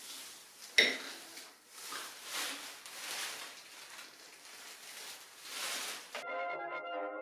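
Crinkly rustling of a plastic bin-bag gown and hands working through hair, with one sharp clink about a second in. Brass music starts near the end.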